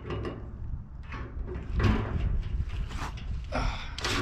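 Irregular scraping and clunking of metal parts being handled and fitted against a steel drum, with a louder scrape about two seconds in and another near the end.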